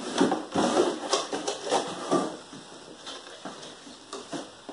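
Hands rummaging through a cardboard box of automotive wiring harness parts: a quick run of short rustles and clicks, busiest in the first two seconds and then fainter.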